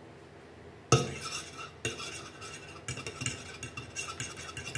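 A metal fork whisking two raw eggs in a bowl, clinking and scraping against the bowl in quick, irregular taps that start about a second in.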